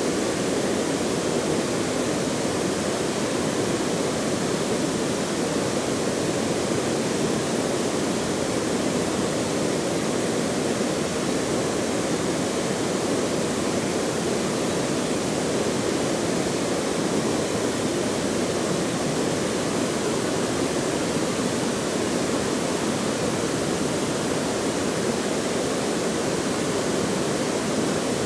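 Steady rush of running water, an even noise with no breaks.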